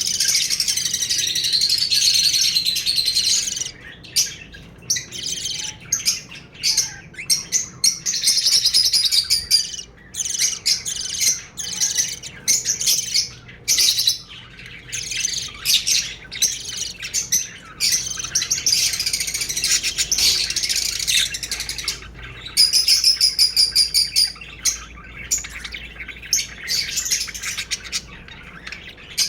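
Small birds chirping and twittering, many short high calls overlapping almost without pause, with a quick trill of rapid repeated notes partway through.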